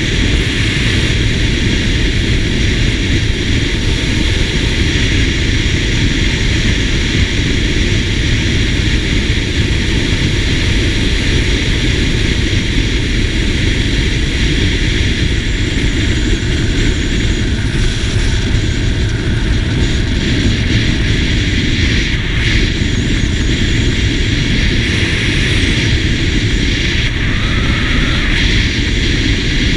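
Steady wind rush over the microphone, mixed with engine and road noise from a SYM GTS 250 scooter cruising along an open road.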